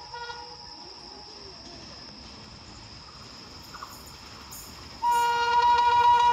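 Horn of an approaching Indian Railways electric locomotive: a long steady blast trails off at the start, and about five seconds in a second long blast starts abruptly, much louder, and holds.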